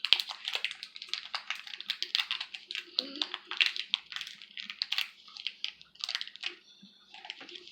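Clear slime being squeezed and kneaded by hand, giving a steady run of quick, wet clicks and crackles.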